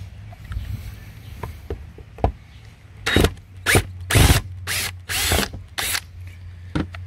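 Cordless drill/driver backing screws out of an RV's outdoor shower box, in about six short bursts starting about three seconds in. The screws are still gripping and turning out rather than spinning in rotted wood.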